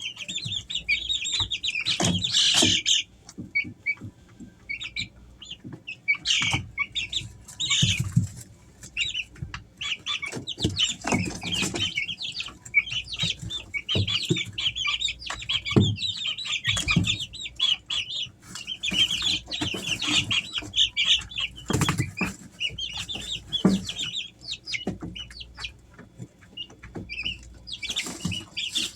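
Three-week-old Easter Egger chicks peeping almost continuously in short high chirps, with scattered short knocks and rustles among them.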